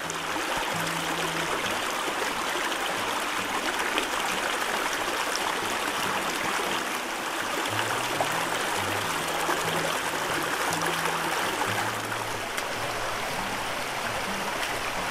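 Shallow creek running over rocks and sand: a steady, even rush and trickle of flowing water.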